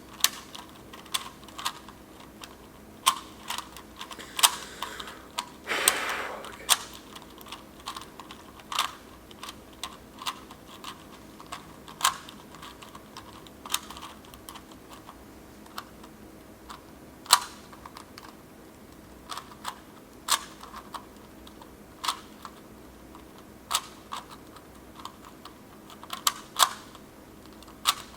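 Rubik's Cube layers being twisted by hand, each turn giving a sharp plastic click, at an irregular pace of roughly one click every second or two, with a longer scraping rustle about six seconds in.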